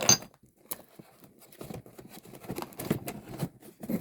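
Small electronic parts being handled and rummaged through: irregular light clicks and rattles, with a louder knock at the start and another near the end.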